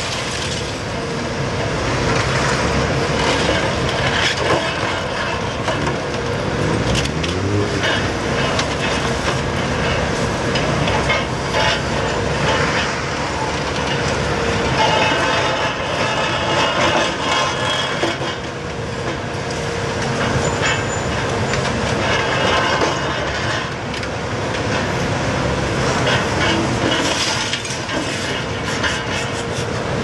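Hitachi Zaxis 280LCN tracked excavator running under load, its engine and hydraulics giving a steady hum with a constant tone, while its demolition crusher jaw works the concrete rubble in repeated sharp cracks, crunches and clatters.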